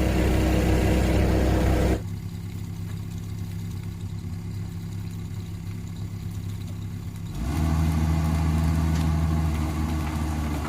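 Kubota tractor's diesel engine running steadily. It turns abruptly quieter about two seconds in and comes back louder about seven and a half seconds in.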